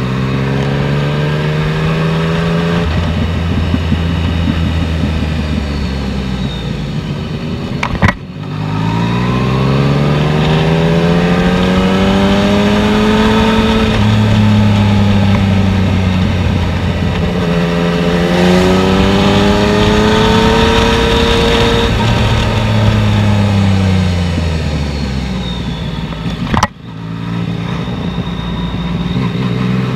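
Yamaha MT-09's three-cylinder engine heard from the rider's seat, its pitch rising and falling again and again as it revs up and eases off on a downhill ride, with wind rush behind it. Two sharp cracks, about 8 seconds in and near the end, each cut the engine sound briefly.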